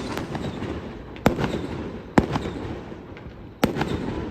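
Aerial firework shells bursting in a display: three loud bangs, the second under a second after the first and the third about a second and a half later. Each is followed by a fading rumble and crackle.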